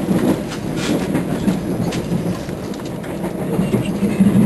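Passenger train running along the track, heard from inside the carriage: a steady rumble with the wheels clicking over rail joints.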